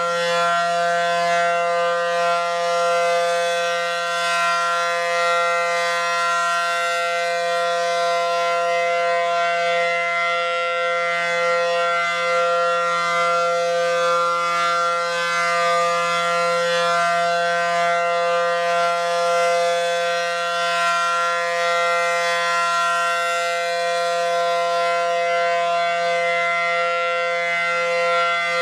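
Federal Signal 500 outdoor warning siren sounding its weekly test, a loud steady tone that holds its pitch, swelling and fading slightly in loudness.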